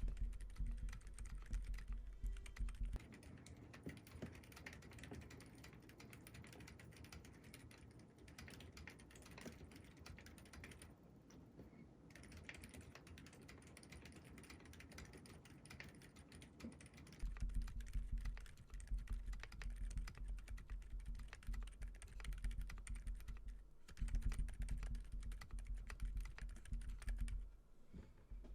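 Typing on a modded Keychron Q1 mechanical keyboard fitted with lubed Gazzew Bobagum linear switches and GMK Mizu clone keycaps: a continuous stream of keystrokes. The typing is heavier and louder for the first few seconds and again through most of the last third, and lighter in the middle.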